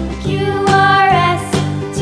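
Children's background music: a melody over a regular beat.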